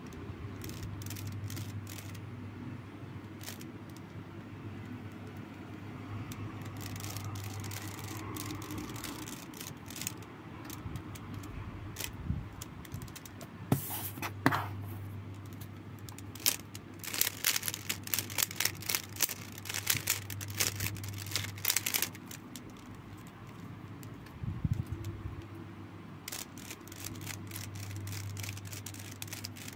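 Plastic 3x3 speedcube being turned by hand, its layers clicking in quick runs that come thickest in the second half, over a steady low hum.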